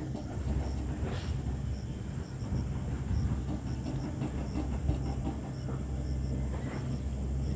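Hitachi excavator's diesel engine running steadily under load, with crackling and knocking as it chips up oil palm trunks, and two brief hisses, about a second in and near the end.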